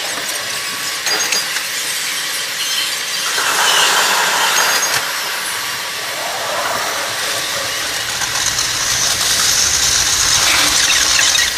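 Train running noise played back at eight times speed, a steady high rushing hiss with fast scratchy rattling, swelling about four seconds in and again near the end.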